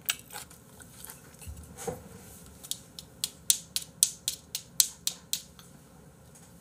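Metal chopsticks clicked against each other in a quick run of about a dozen sharp clicks, roughly four a second, with a few single clicks before it.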